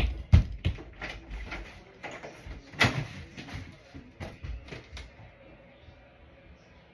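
Quick footsteps and knocks of a child running off, fading away and gone after about five seconds.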